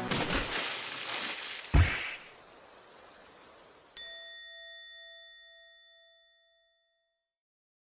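Edited-in sound effects: a rushing hiss with a heavy thud just under two seconds in, then about four seconds in a single bright bell-like ding that rings out and fades over about three seconds.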